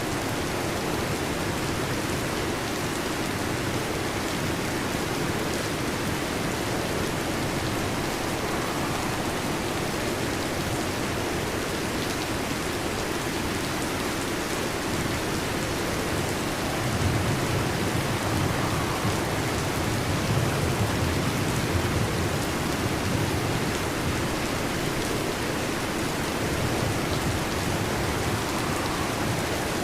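Heavy, steady rainfall with a low rumble of thunder rolling in a little past halfway and fading away.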